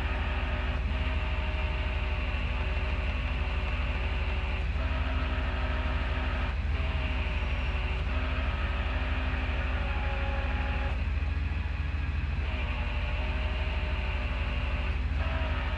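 Tow truck's engine running steadily under load while its winch drags a car up out of a ditch. A steady low hum with a whine above it whose pitch shifts several times as the load changes.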